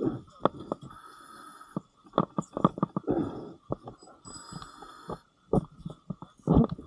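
Muffled sound heard through an underwater camera housing: irregular gurgling bursts, like a diver's exhaled bubbles, mixed with many sharp clicks and knocks.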